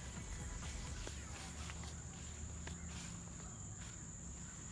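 Faint background: a steady high-pitched insect trill, like crickets, with a low hum and a few light clicks.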